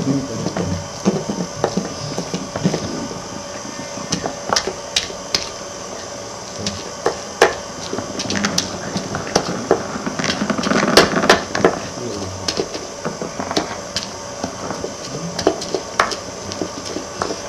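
Irregular clicks, knocks and scraping as material is rubbed and ground by hand in a shallow dish. A denser, louder run of scraping and knocks comes about ten to twelve seconds in.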